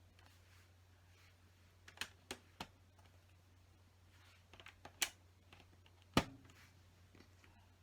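Plastic LEGO bricks clicking and tapping as pieces are handled and pressed together: three sharp clicks about two seconds in, a small cluster around five seconds, and the loudest single click about six seconds in, over a low steady hum.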